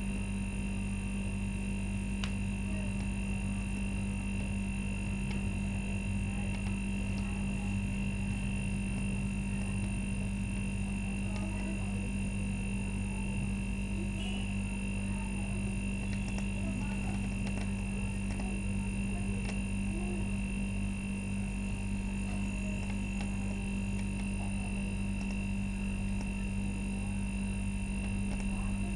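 A steady hum with a constant high-pitched tone above it, unchanging in level, with a few faint ticks.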